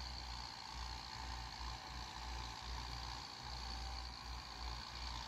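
Kubota tractor engines running steadily at a distance, a low uneven rumble under a steady high insect-like drone.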